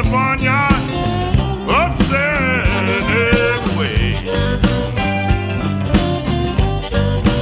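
Electric blues band playing: a lead line of bent, wavering notes over bass and drums.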